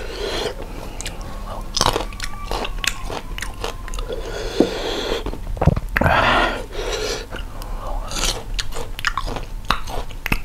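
Close-up chewing and biting of crisp raw sour fruit, with many sharp crunches throughout.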